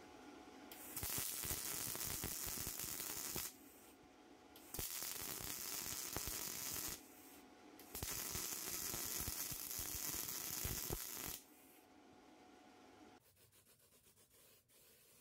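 Electric arc welding crackling and hissing in three bursts of a few seconds each, with short pauses between them as the weld is laid in stages.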